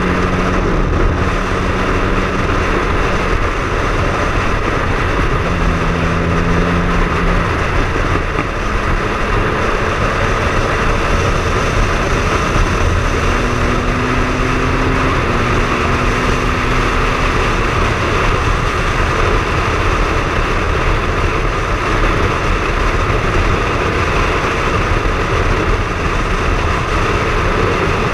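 Triumph Speed Triple three-cylinder motorcycle being ridden on the road: a steady rush of wind and road noise over the engine, whose note holds at one pitch for a second or two and then shifts several times.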